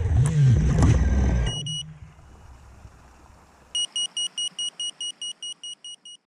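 FPV racing quadcopter's brushless motors (RotorRiot Hypetrain 2306) whining and revving, then cutting off suddenly about a second and a half in as the quad disarms. A single short electronic beep follows, and about two seconds later a quick run of about a dozen beeps, roughly five a second, fading slightly.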